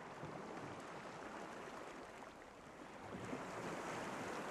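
Ocean surf: a steady wash of waves breaking on a shore, swelling a little after about three seconds.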